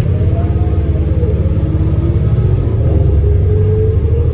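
Cabin sound of a 2018 New Flyer Xcelsior XD40 diesel city bus under way: a steady low engine rumble. Over it a whine rises and falls in pitch during the first second or so, then climbs again near the end.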